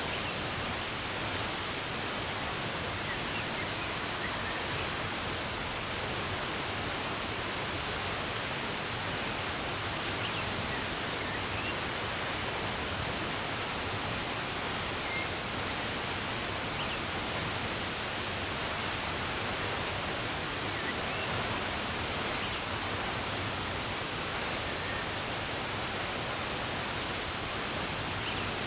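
Steady rush of running water, with a few faint, brief bird chirps scattered over it.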